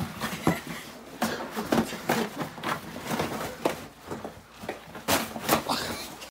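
A puppy and a person wrestling on a carpeted floor: irregular scuffling, knocks and rustling, with short vocal sounds mixed in.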